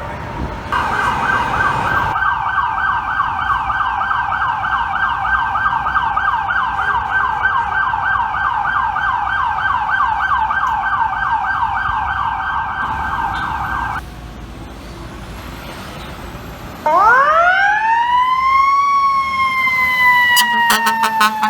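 Fire truck sirens: a rapid, steady yelp warbling several times a second runs for about thirteen seconds and then cuts off. After a brief lull a second siren rises steeply in a long wail and slowly falls, with a few sharp clicks near the end.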